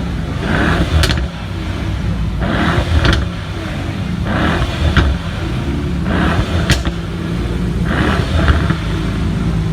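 Mercedes-AMG E63 S twin-turbo V8 running hard, with a short hissy burst followed by a sharp crack recurring about every two seconds.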